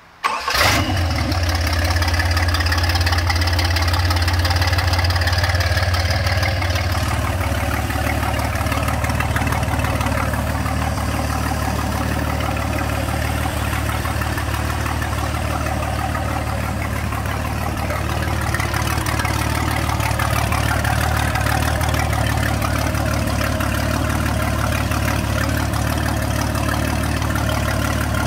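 Marine V8 engine with a two-barrel carburetor idling on a bench test stand. It runs a little louder for the first several seconds, then settles into a steady idle.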